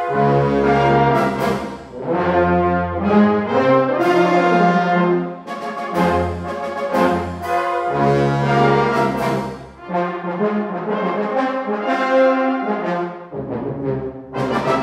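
Brass band music: the full band plays chords over a deep bass line.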